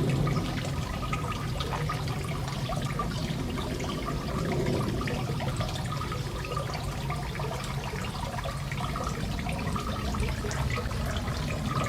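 Garden fountain splashing steadily.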